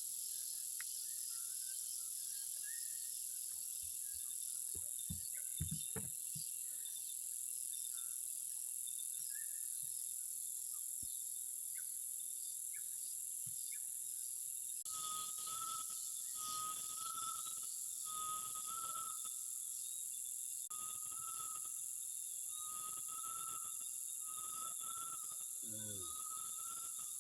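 Dense tropical insect chorus, a steady high-pitched shrill, with scattered short bird chirps in the first half. From about halfway a steady mid-pitched note repeats over and over. A few low thumps come about five to six seconds in.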